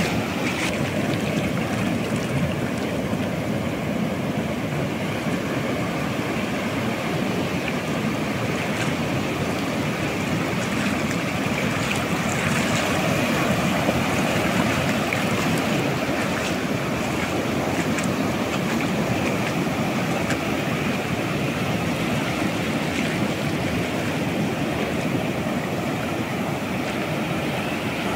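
Steady rush of Atlantic surf breaking and washing up the beach, with wind on the microphone.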